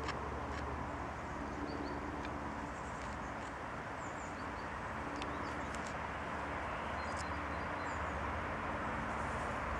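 Small birds chirping in short, scattered calls over a steady background rumble.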